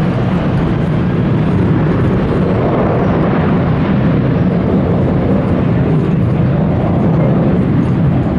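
Airliner engines passing close by, a loud steady noise that holds level throughout.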